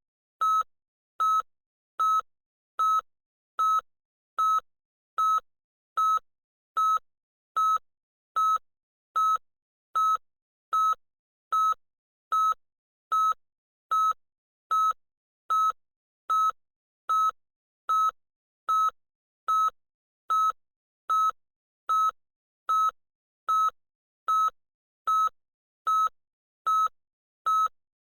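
Electronic beeper sounding a short, loud single-tone beep over and over at an even pace, about five beeps every four seconds.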